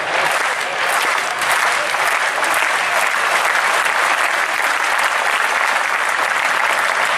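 Stadium crowd applauding: a steady, dense wash of many hands clapping.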